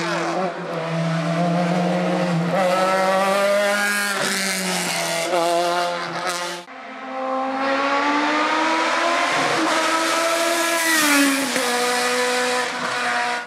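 Hillclimb race car engines at high revs. One engine holds its pitch with brief dips at gear changes. After a sudden break about seven seconds in, an engine climbs steadily in pitch and drops near the end.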